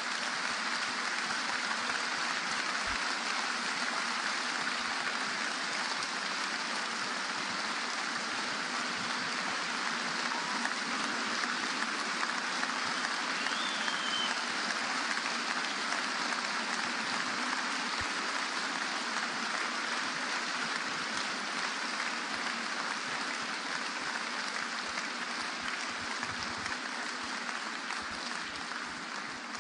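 Large audience applauding steadily after a lecture, the clapping dying away near the end.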